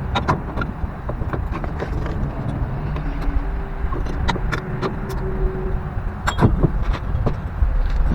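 Metal clicks and knocks of a C-clamp being set and screwed down on a brake caliper, pressing the piston back in against the old pad, over a steady low rumble.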